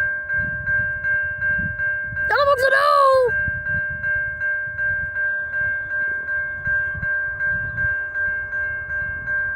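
Railroad grade-crossing warning bell starting to ring as the crossing signal activates, a bright repeated ding about twice a second. About two seconds in, a high voice briefly cries out with a sliding pitch over the bell.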